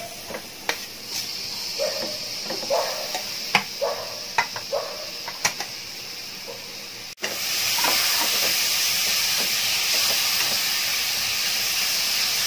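Chopped tomatoes and spice masala sizzling in hot oil in a pressure cooker, with a steel spoon scraping and clinking against the pot as it stirs. About seven seconds in the sound cuts, and the sizzle becomes louder and steady.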